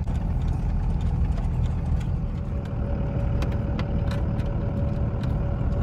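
Steady low rumble of a moving vehicle's engine and tyres, heard from inside the cab, with a few faint scattered ticks. A thin steady whine comes in about halfway.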